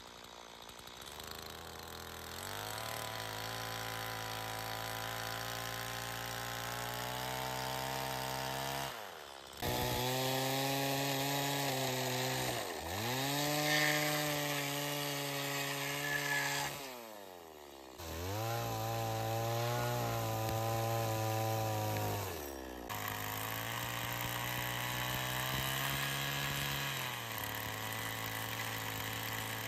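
A small engine running at steady high speed, its note dropping sharply and picking back up several times through the stretch.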